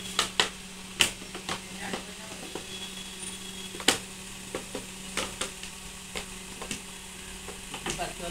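Irregular sharp clicks and taps of a clear plastic jar being handled as its cap is twisted tight, the loudest about a second in and about four seconds in, over a faint steady low hum.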